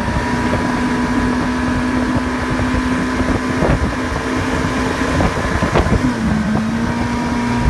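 Johnson 140 outboard motor running steadily at speed while towing a waterskier, over the rush of the churning wake and wind on the microphone. About five seconds in its pitch dips briefly, then settles back a little lower.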